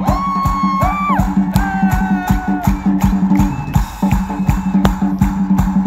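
Live band playing an instrumental passage: a steady drum beat of about four strokes a second under a held bass line, with a lead instrument playing long sustained notes that bend in pitch.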